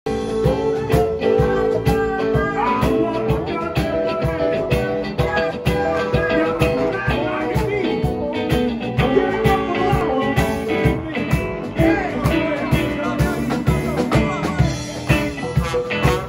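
Live blues band playing: electric guitars, trombone and a drum kit keeping a steady beat, with held horn notes over the guitar lines.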